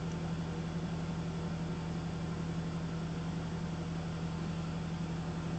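Steady low machine hum with an even background hiss, unchanging throughout, with no distinct knocks or cuts.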